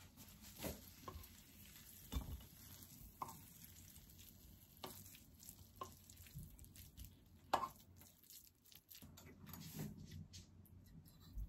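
Kimchi fried rice being scraped out of a square coated frying pan onto a plate with a wooden spatula: soft scraping and shuffling of the rice, with a few light taps of the spatula and pan, the sharpest a little past halfway.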